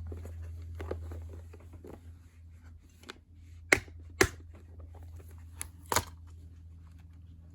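Hands handling heat-shrink tubing, with light rustling and three sharp clicks, over a steady low hum that fades after a couple of seconds.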